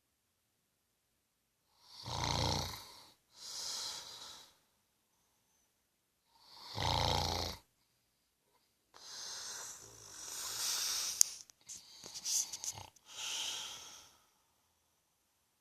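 A man snoring in his sleep: a deep snore about two seconds in followed by a softer breath, a second deep snore about seven seconds in, then a longer, uneven stretch of noisy breathing with a sharp click in the middle, with quiet pauses between breaths.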